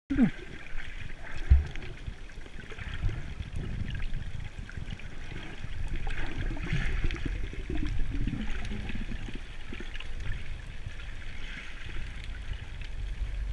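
Muffled underwater noise from a camera in its waterproof housing: a low rumble and a steady hiss of moving water, with a single thump about a second and a half in.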